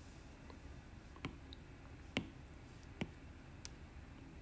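Faint, sparse clicks of a stylus tip tapping on a tablet's glass screen during handwriting: a few sharp taps, roughly one a second, over a low steady hiss.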